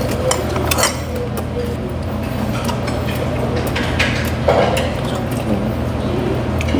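Tableware clinking and tapping during a meal: spoons or chopsticks knocking against dishes in scattered short clicks, over a steady low background hum.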